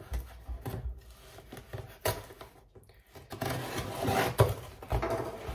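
Knife slitting the packing tape on a cardboard parcel: scattered clicks and handling knocks at first, then a denser run of scraping and rasping about three seconds in, loudest just past four seconds.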